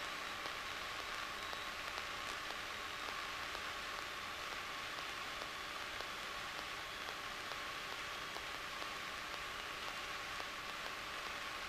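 Steady, even hiss on the cockpit intercom audio, with no engine beat or other events coming through.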